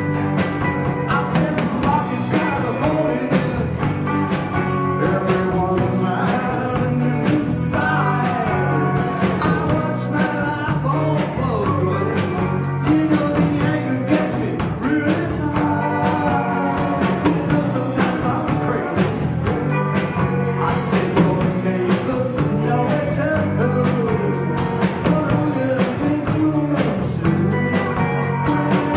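A live rock band playing: electric guitar, bass guitar and drum kit with a steady beat, and a singing voice over them.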